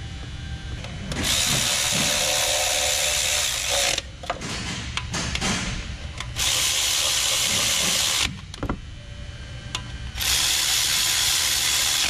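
Cordless electric ratchet running in three bursts of two to three seconds each, with a few sharp clicks between them as the socket is worked on bolts.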